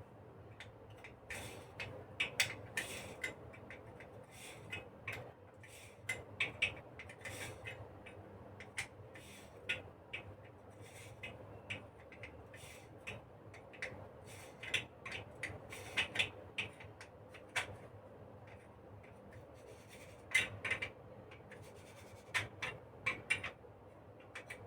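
Metal parts of a flame safety lamp being handled and screwed together by hand: light, irregular clicks and scrapes as the threaded parts are turned tight.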